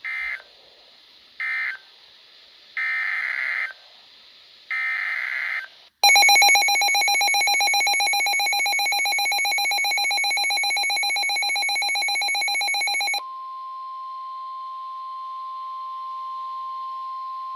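Weather radio alert sequence: four short bursts of warbling SAME digital header tones, then a loud, rapidly pulsing electronic alarm tone for about seven seconds, then the steady 1050 Hz NOAA Weather Radio warning alarm tone that precedes the spoken message.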